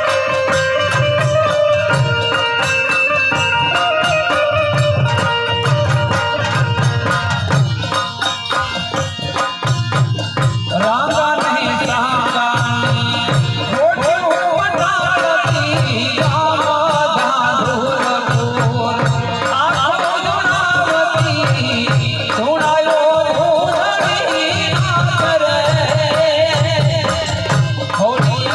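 Gujarati devotional garba music: a steady, rhythmic drum beat under melodic instruments, with a wavering melody line coming in about eleven seconds in.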